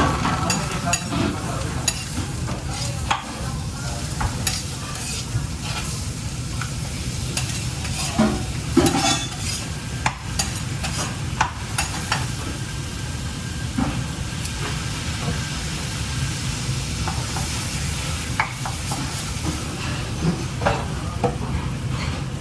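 Working kitchen noise: frequent short clicks and clatters of utensils and cookware over a steady low rumble.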